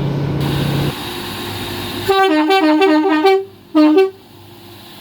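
Two-tone train horn sounding a rapid run of short blasts that alternate between a high and a low note, then after a brief pause two more blasts.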